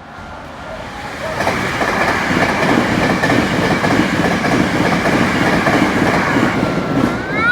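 Hankyu Kobe Line electric train passing close by at a level crossing: wheels rumbling and clacking over the rails, building up about a second in and holding loud. Near the end a short tone sweeps up and falls back.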